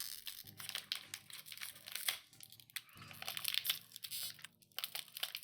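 Foil wrapper of a trading-card booster pack crinkling and being pulled at, with irregular crackles as it is torn at from the top; the wrapper is stubborn and hard to open that way.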